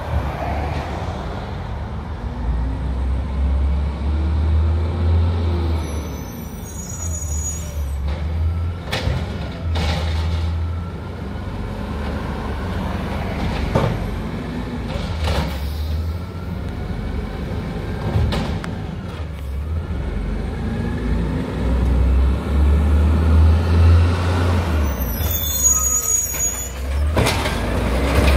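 LNG-powered Peterbilt 320 garbage truck's engine running and revving up in stretches to drive the Amrep automated side loader's arm as it lifts and dumps recycling carts. Several sharp knocks and bangs from the cart and arm, and short high squeals twice.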